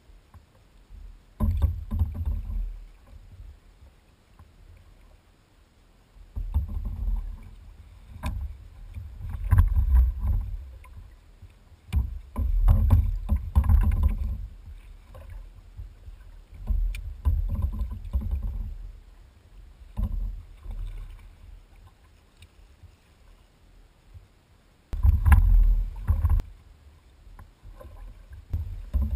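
Sea kayak on open ocean: muffled sloshing and rumbling from the hull and paddler's movements, coming in irregular surges of a second or two with quieter gaps, and a few sharp knocks in between.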